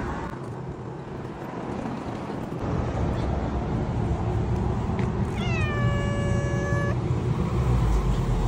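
Siberian cat giving one long meow about halfway through, its pitch dropping at the start and then held steady, over a low steady rumble.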